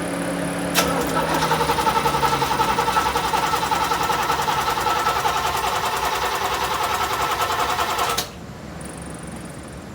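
An electric fan's hum dies away in the first second. About a second in, the starter engages with a click and cranks the 1984 Corvette's Cross-Fire Injection 350 V8 in an even, rhythmic whir for about seven seconds, then cuts off abruptly. The engine never catches: this is a crank-no-start, which the owner suspects comes from a fuel pump relay damaged when the engine was washed.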